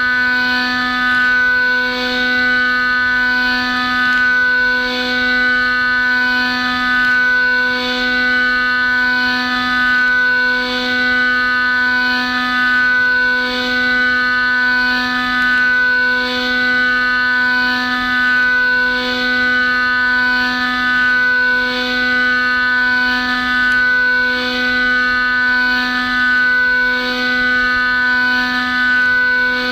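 Haas UMC-750SS spindle driving a six-flute half-inch ceramic end mill through Inconel 625 at very high speed and feed: a loud, steady, high-pitched whine that holds its pitch, swelling and dipping slightly at an even pace as the tool works around the part.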